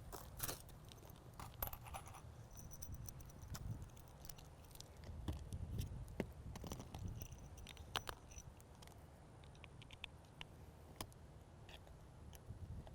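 Faint, scattered clicks and light metallic clinks of roof mounting hardware being handled, over a steady low rumble.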